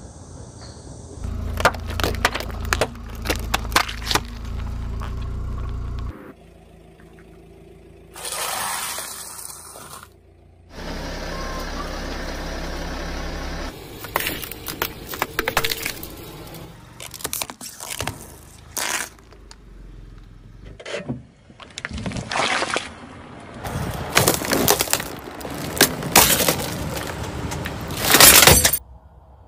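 A car tyre rolling over and crushing things on asphalt: a run of crunching, crackling and sharp snapping sounds that includes drink cans being flattened. Between the crushes there are stretches of steady low rumble.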